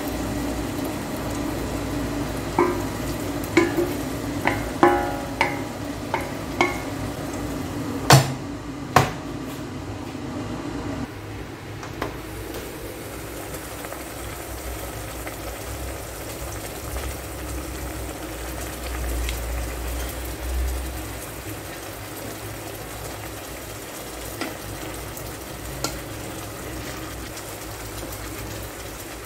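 Chicken livers in soy sauce sizzling in a rice cooker's inner pot while a wooden spatula stirs them, with a run of short ringing clinks against the pot in the first several seconds and two sharp knocks soon after. The sizzle settles to a quieter steady simmer for the rest.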